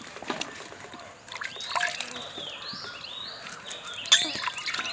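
Water splashing and dripping as a bottle gourd is washed by hand in a steel pot and plate, with a sharper splash about four seconds in. Birds chirp repeatedly in the background.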